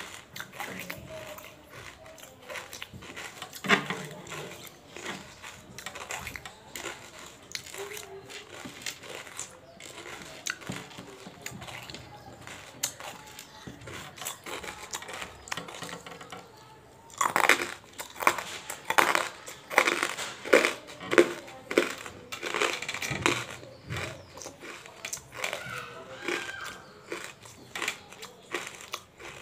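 Close-miked crunching of hard tabasheer (banslochan) crystals between the teeth: a run of sharp cracks and crackles, with quieter chewing for the first half and a dense, loud spell of crunching a little past the middle.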